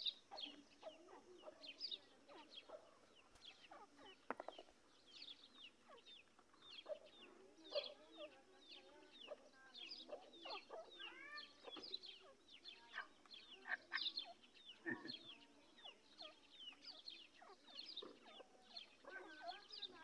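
Black francolins (teetar) giving many faint, short chirping and clucking calls, scattered irregularly throughout.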